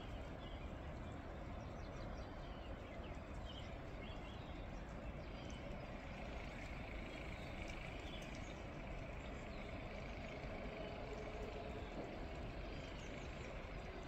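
Steady outdoor ambience of a spring snowstorm: an even low rumble and hiss, with faint high chirps scattered through.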